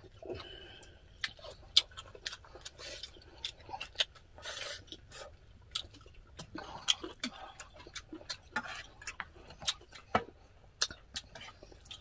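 Close-up eating sounds of two people: chewing and mouth noises, with scattered small sharp clicks and taps of chopsticks against glass bowls.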